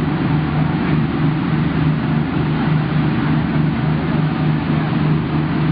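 An engine running steadily, a constant drone with a low hum.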